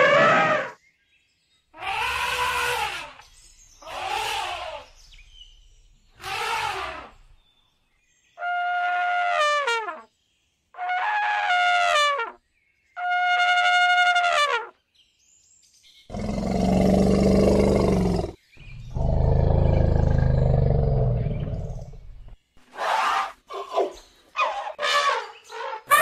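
Elephant trumpeting: a series of separate calls of one to two seconds, several ending in a falling pitch. Two longer, lower, rough roars come a little past the middle, then a cluster of short calls near the end.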